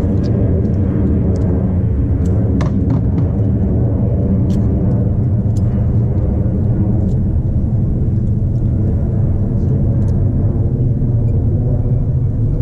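Boat's outboard motor running steadily at low speed, a loud even rumble, with a few faint clicks over it.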